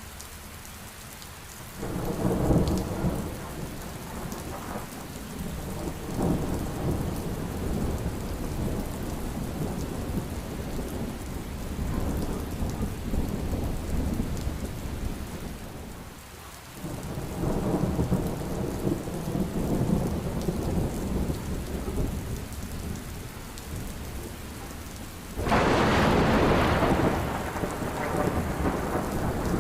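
Heavy rain falling steadily, with thunder rolling several times. A louder, sharper thunderclap comes about 25 seconds in.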